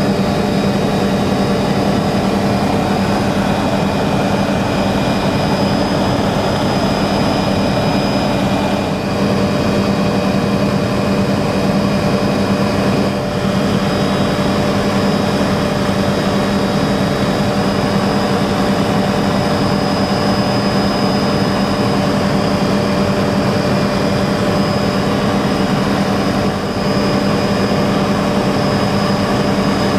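Helicopter in flight, heard from inside the cabin: the engine and rotor make a loud, steady drone, with a constant hum and a thin high-pitched whine above it.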